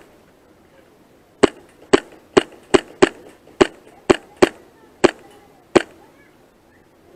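Airsoft pistol firing ten single shots in semi-auto, sharp snapping cracks at an uneven pace of roughly two a second, starting about a second and a half in and stopping near six seconds.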